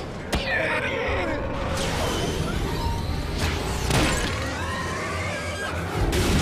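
Cartoon battle soundtrack: dramatic action music under a run of fight sound effects, with several sharp hits and sweeping whooshing glides.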